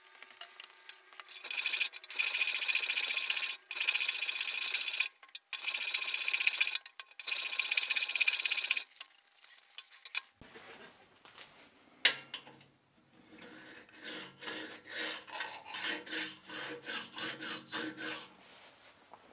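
Hand file scraping across the edges of a freshly milled steel plate: about five long, loud strokes, then a single tap, then quicker, quieter short strokes.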